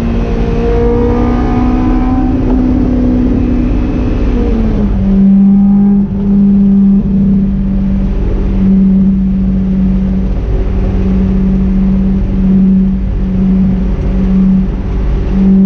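Honda S2000's four-cylinder engine droning steadily under the car while driving, heard from inside the cabin. Its pitch drops a few seconds in, then holds with brief dips.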